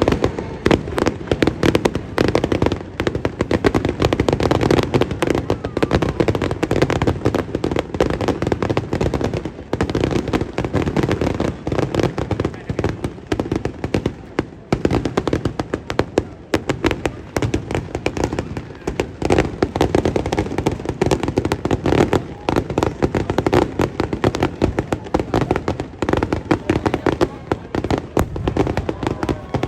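Fireworks display going off in rapid, continuous volleys: dense bangs and crackling, many bursts a second with no pause.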